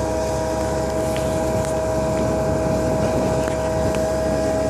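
Concrete pump truck running steadily at constant speed: a continuous engine drone with a steady whining tone and a few faint ticks.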